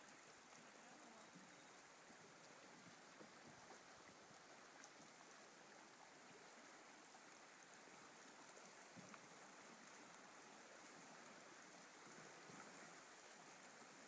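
Faint, steady rush of flowing river water rippling past the canoe.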